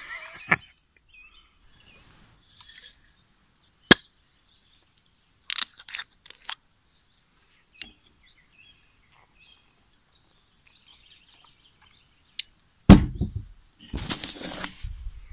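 Scattered sharp clicks and knocks of things being handled, with one loud thump near the end followed by a short rustle. Faint bird chirps sound between them.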